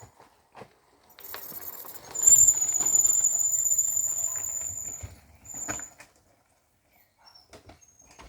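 A steady, shrill high-pitched whistling tone about two seconds in, lasting about three seconds. It stops and comes back once briefly shortly after.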